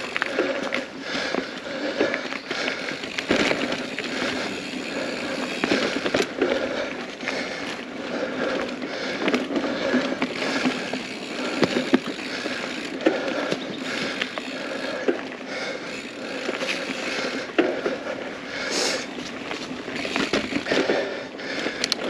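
Mountain bike rolling fast along a dirt singletrack: steady tyre noise on the dirt, broken by frequent short rattles and knocks from the bike over the bumpy trail.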